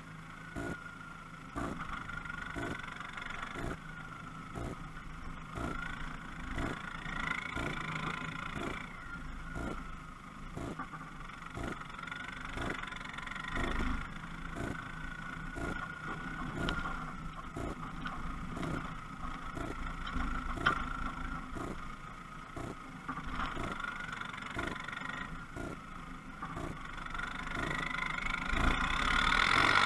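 Land Rover Discovery 1 engine running through a straight-piped exhaust as it is driven, the pitch rising and falling with the throttle. It gets louder and climbs near the end as it accelerates.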